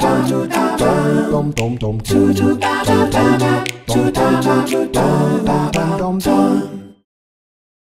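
Background a cappella vocal music, several voices singing over sharp percussive clicks, cutting off abruptly about seven seconds in.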